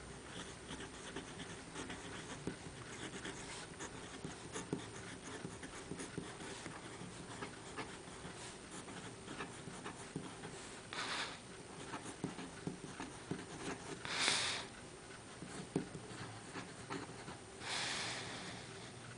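Steel fountain-pen nib scratching and ticking across a paper tag as a line of handwriting is written. Three short hissy puffs of noise stand out, one about halfway through, one a few seconds later and a longer one near the end.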